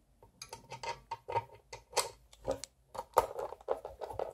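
Screwdriver turning a screw into the metal housing of an LED floodlight: a run of irregular clicks and ticks, several a second, starting about half a second in.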